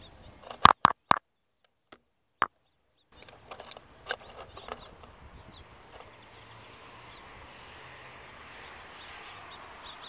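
A bird pecking at the camera's housing: three sharp taps in quick succession about half a second in, a single tap about a second and a half later, and a scatter of lighter taps around four seconds in. After that only a faint steady outdoor background that slowly grows.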